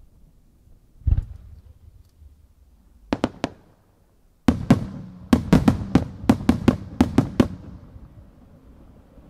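Aerial firework shells going off. One deep boom comes about a second in and three sharp cracks come near three seconds. A quick run of about a dozen sharp bangs follows over some three seconds, then fades into a rumble.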